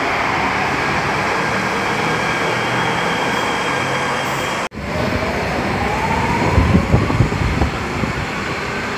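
Nuremberg U-Bahn trains in an underground station. First a train runs past close by with a steady rumble and a faint motor whine. After a sudden cut about halfway, another train pulls in, its whine gliding in pitch, with a run of low thuds from the wheels as the cars roll past.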